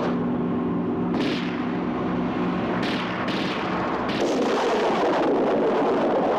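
Battle sound effects: about three sharp shots or bangs over a low steady hum, then a loud sustained explosion rumble from about four seconds in.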